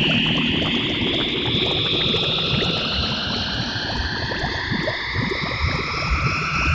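Electronic science-fiction sound effect: several tones glide slowly upward in pitch, one sweep after another, over a dense crackling, bubbling texture.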